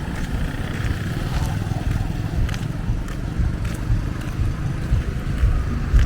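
Street traffic: a steady low vehicle engine rumble, with a few faint clicks.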